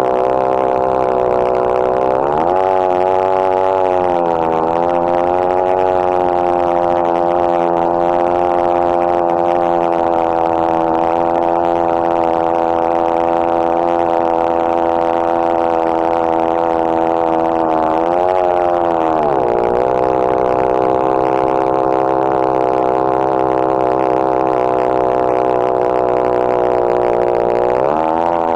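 Two-stroke chainsaw running at high revs in a chainsaw mill, ripping a plank lengthwise through a red cedar log. Its engine note holds steady and dips briefly, then recovers, three times: about two seconds in, around eighteen seconds, and near the end.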